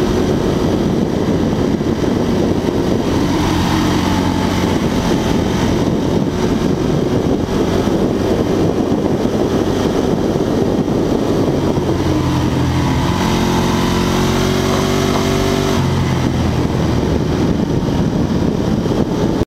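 Ducati 1098's L-twin engine running under way, heard through heavy wind rush on a side-mounted camera. The engine note comes through more clearly a few seconds in and again for several seconds in the second half.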